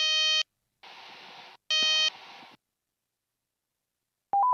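Helicopter cockpit warning horn, the Robinson R44's low rotor RPM horn, sounding as a steady, piercing tone. It cuts off, comes back for a moment about two seconds in, and between the blasts the audio drops out to silence or a faint rush. It warns that rotor speed is decaying after the engine has quit. Near the end an alternating two-tone warning warble begins.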